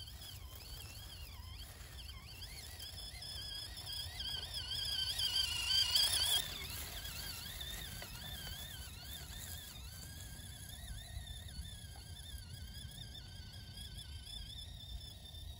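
Axial SCX24 Jeep Gladiator 1/24-scale RC crawler's small electric motor and gears whining, the pitch wobbling up and down with the throttle as it crawls. The whine grows louder, drops off abruptly about six seconds in, then carries on more softly at a lower pitch.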